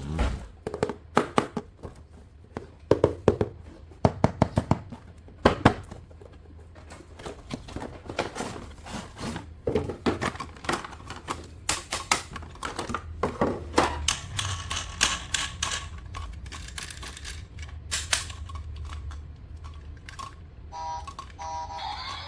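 Irregular clicks and knocks of hard plastic toy vehicles and their packaging being handled during unboxing. Near the end, a few short electronic tones from a toy's sound module.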